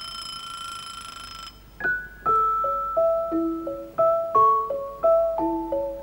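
Title theme music. A bright, held ringing tone sounds for the first second and a half, then a bouncy melody of short, quickly fading notes begins on a keyboard instrument.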